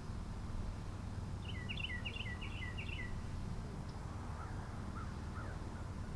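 A songbird singing a quick series of about six repeated down-slurred notes in about a second and a half, followed a little later by a few fainter, lower calls, over a steady low background rumble.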